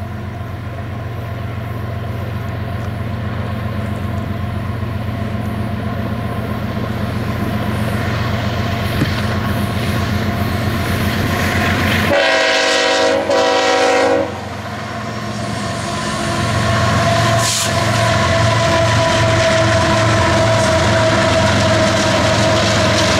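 Diesel locomotives hauling a hopper freight train, their engines droning steadily and growing louder as the train approaches. About twelve seconds in, the locomotive horn sounds one blast of about two seconds. Near the end, the locomotives pass close by with a steady, louder drone and a rhythmic low beat.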